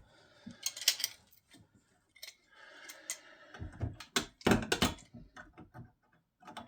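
Tools and small parts being handled during a teardown: a run of clicks, knocks and brief rattles, with a few heavier knocks about four to five seconds in.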